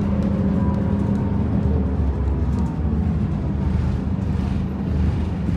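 A vehicle's engine running steadily with a low hum.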